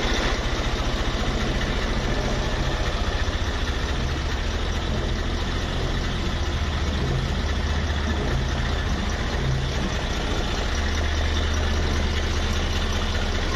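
HMT 3511 tractor's diesel engine idling steadily with a fast, even low chug.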